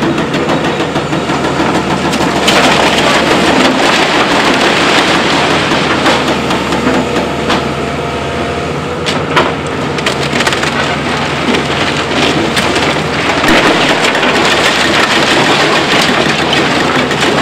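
Heavy machinery with a steady engine running under a continuous clatter and grinding of rocks and stones, with many sharp knocks throughout.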